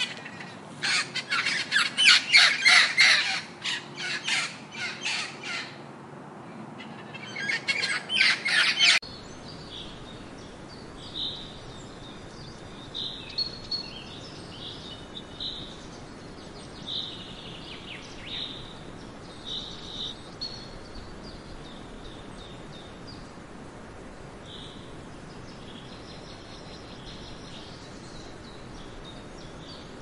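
Blue-and-yellow macaws squawking loudly in rapid, harsh calls. About nine seconds in, the sound cuts abruptly to steady outdoor background noise with scattered short chirps of small birds.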